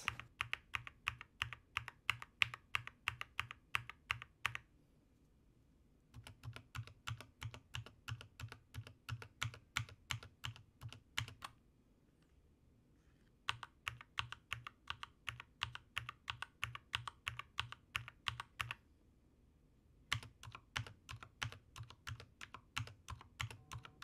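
Typing on a Keychron K2 aluminium-frame mechanical keyboard with red linear switches and PBT keycaps: a fast, even run of keystrokes in four stretches of a few seconds each, with short pauses between. The sound is very quiet and muffled, with little high-pitched clack.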